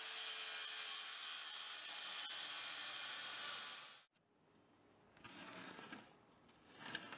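Corded circular saw cutting through a pine board, a loud steady saw noise that stops abruptly about four seconds in. Only faint scattered sounds follow.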